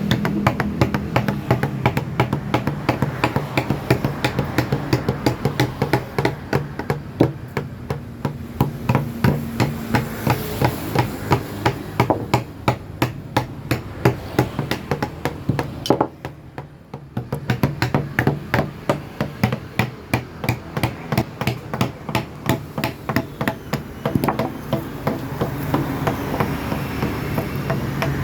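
Mallet striking a carving chisel into wood: a steady run of quick taps, several a second, pausing briefly about sixteen seconds in.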